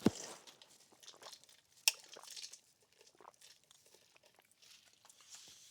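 Close-up chewing and crunching of food, with soft wet mouth clicks and a sharp click about two seconds in.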